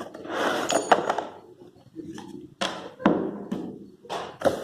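A corded drill being unboxed from cardboard packing: the cardboard scrapes and rustles in bursts, with several hard knocks and clicks as the drill and box are handled. The sharpest click is about a second in.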